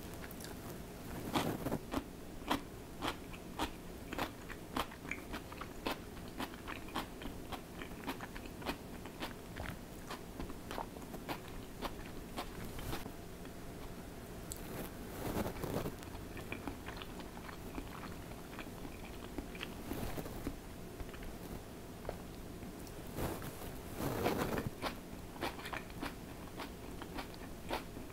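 Close eating sounds: crisp food being bitten and chewed, a rapid run of sharp crunches with denser crunching bouts about a second and a half in, around fifteen seconds in and near the end. A faint steady hum lies underneath.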